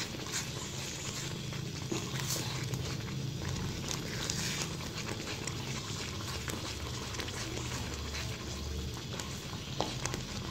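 Spatula continuously stirring thick semolina halwa simmering in milk in a frying pan: wet, sticky stirring of the thickening mixture.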